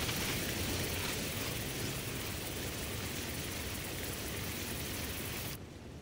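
A steady rushing, airy noise from an animation's sound-design ambience. It drops away abruptly about five and a half seconds in.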